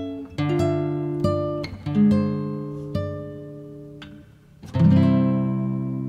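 Background music: an acoustic guitar plucking single notes and chords, each ringing and fading, with a louder chord struck near the end that rings on.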